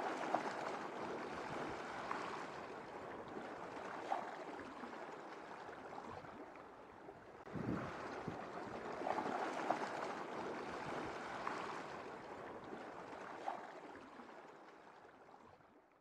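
Sea water sloshing and surging around a camera just below the surface, with a stronger surge of swell about halfway through and a few light ticks; it fades out at the very end.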